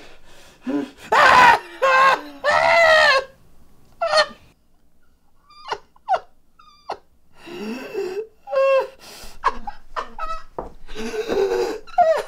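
A man crying out in pain: two loud, long screams about a second in, then short gasps and whimpers, then more strained cries near the end.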